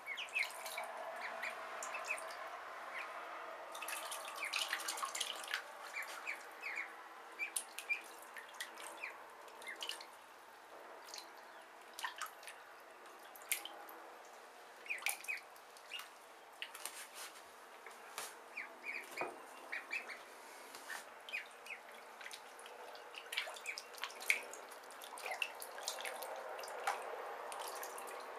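A brood of Khaki Campbell ducklings peeping in short, high chirps while they paddle and splash in shallow water in a bathtub, with small drips and splashes throughout.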